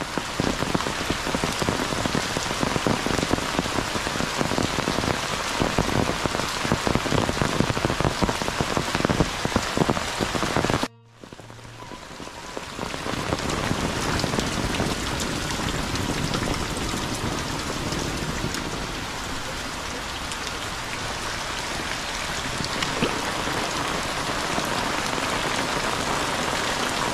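Heavy rain pouring down on tiled roofs and a muddy lane, a dense steady hiss with close drops. It cuts out for a moment about eleven seconds in, then comes back a little softer.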